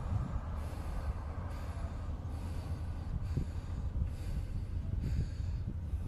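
A person breathing heavily through the nose close to the microphone, one breath about every second, over a steady low rumble of wind on the microphone.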